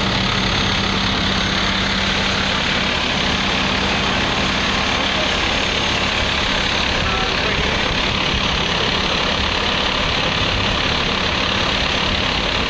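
Steady drone of large diesel engines idling, with a low hum underneath and no sudden changes.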